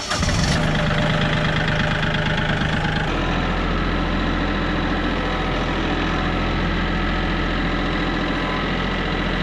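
Diesel engine of a compact tractor idling right after starting. Its note changes and settles into a steady, even idle about three seconds in.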